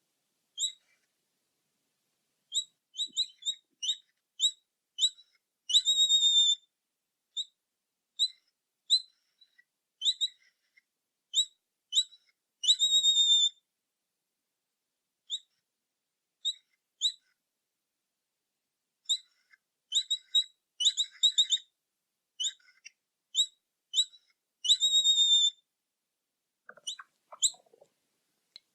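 Capybara calling in short, high, whistle-like chirps, singly and in quick runs, with three longer drawn-out calls, separated by silent gaps.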